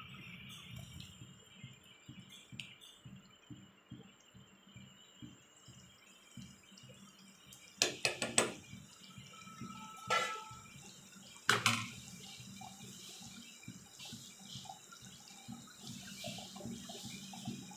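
Thick curry gravy with prawns and eggs boiling in a pan: bubbles burst in a steady run of irregular low plops. A few sharper knocks come about eight seconds in and again near ten and eleven and a half seconds.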